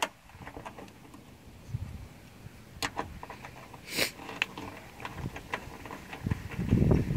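Light metallic clicks and ticks of 10 mm bolts being turned out by hand with a screwdriver-handled socket driver, with a brief scrape about four seconds in. Wind rumbles on the microphone, building near the end.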